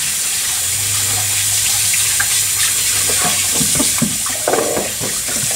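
Tap water running steadily into a sink as bass fillets are rinsed by hand, with small splashes and knocks of handling.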